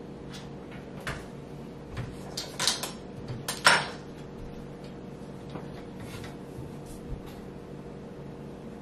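A few knocks and clunks of things being handled and set down on a kitchen counter, several in quick succession around the middle with the loudest about three and a half seconds in, over a steady low hum.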